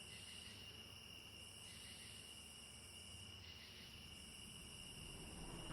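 Faint high-pitched chirring that pulses on and off about every second and a half, over a steady high whine.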